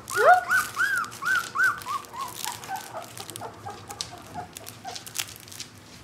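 Young 18-day-old Gerberian Shepsky puppy whimpering: a rapid string of short, rising-then-falling whines, about three or four a second. They are loudest in the first two seconds, then grow fainter and lower until they die away about five seconds in. A second puppy gives a single rising whine just after the start.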